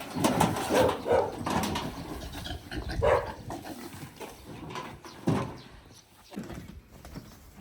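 Short animal cries in scattered bursts, loudest in the first second and again about three and five seconds in, then fading.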